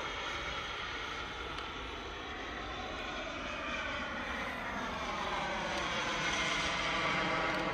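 CARF Rookie radio-controlled model jet's turbine running in flight as the jet passes, its tone sweeping in pitch and growing louder toward the end.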